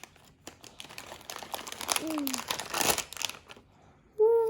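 Plastic and paper packaging crinkling and crackling as it is unwrapped. Near the end a child's voice starts a steady, held sung note.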